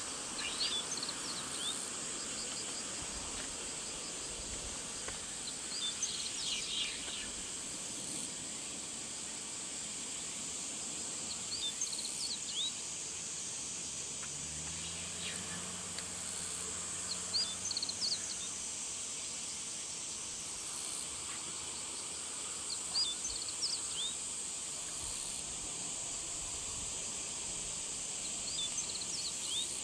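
Steady high-pitched drone of summer insects, with short bursts of bird chirps about every five to six seconds.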